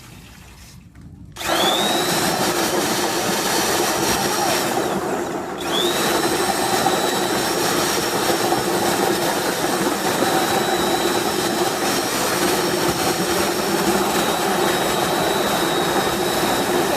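An electric walnut-washing machine switches on about a second and a half in and spins up with a rising whine. It drops briefly around five seconds, spins up again, then runs steadily with a high whine over a loud, even noise.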